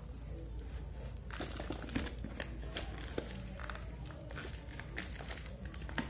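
Plastic wrapping crinkling in irregular short crackles as a plastic-wrapped siren unit is handled.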